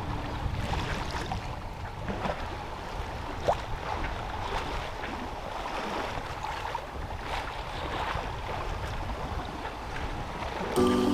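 Water washing and splashing along a sailboat's hull as it sails through light chop, with wind on the microphone.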